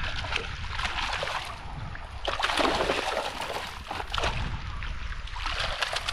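A hooked gold spot trevally thrashing and splashing in shallow reef water as it is landed, in irregular bursts, loudest about two and a half seconds in. A steady low rumble of wind on the microphone runs underneath.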